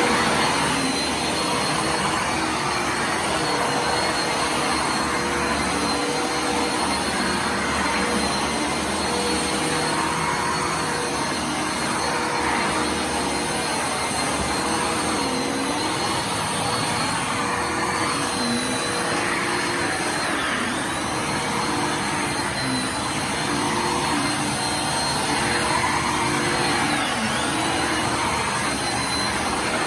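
Bissell Lift-off Multi Cyclonic Pet upright vacuum cleaner running steadily, its motor whine dipping briefly in pitch now and then.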